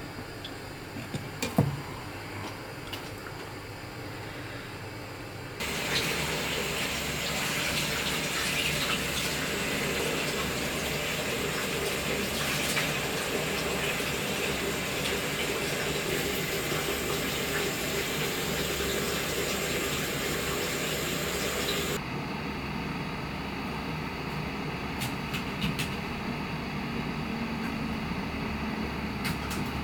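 Steady rush of running water, like a tap running, that starts suddenly about six seconds in and stops suddenly about two-thirds of the way through. A quieter steady background hum is heard either side of it.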